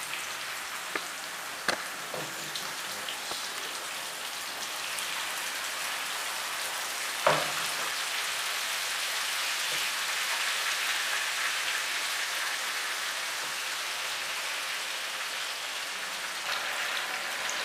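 Marinated chicken pieces sizzling as they fry in hot oil in a frying pan. The steady hiss grows a little louder after a few seconds as more pieces go in, with a few sharp clicks and one louder knock about seven seconds in.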